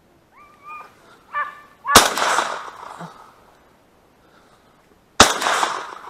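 A flushed duck calling three times, then two shotgun shots about three seconds apart, each with a long echoing tail. The shots miss: the duck was far off and partly behind a tree.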